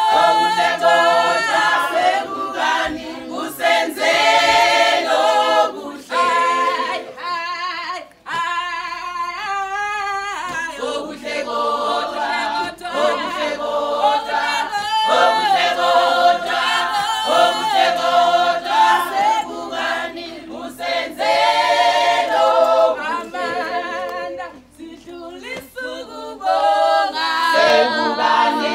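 A choir of men's and women's voices singing together a cappella, in phrases with short breaks between them.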